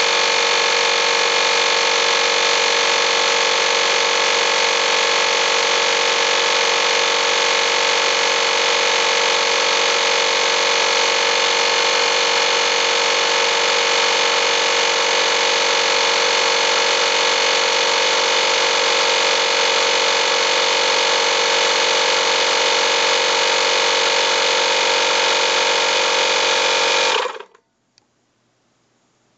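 Campbell Hausfeld FP2028 one-gallon, 120 V air compressor running steadily as it fills its tank. Near the end the motor stops suddenly as the tank reaches its 100 PSI maximum and the pressure switch cuts out.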